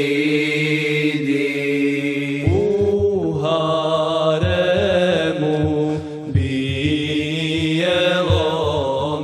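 A cappella ilahija singing: the last sung word, 'stidi', is held over a steady vocal drone, then a wordless vocal melody with a low, even pulse beneath it comes in about two and a half seconds in.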